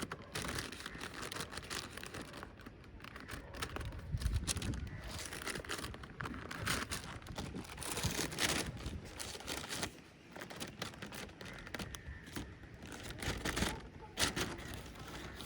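Thin paper kite crinkling and rustling, with irregular crackles and wind buffeting the microphone in low rumbles.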